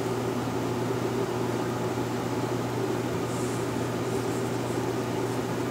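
Steady low electrical hum over an even hiss, with no distinct strikes or clicks.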